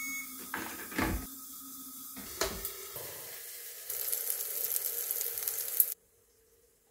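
Two clicks as the Mycook Touch jug's lid is unlocked and lifted, then freshly cooked onion-and-paprika sofrito sizzling in oil in the hot stainless steel jug for about two seconds, cutting off suddenly.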